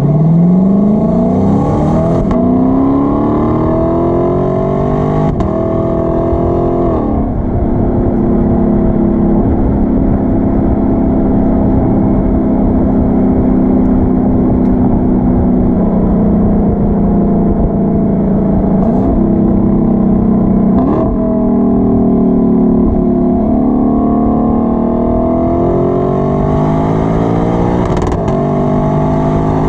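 Sports car engine and exhaust under way. The revs climb, drop sharply at a gear change about seven seconds in, then hold steady. They ease off and fall, then climb again near the end.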